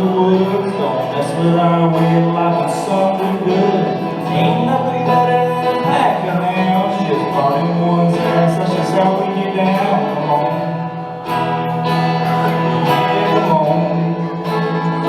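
Country song played live, led by guitar.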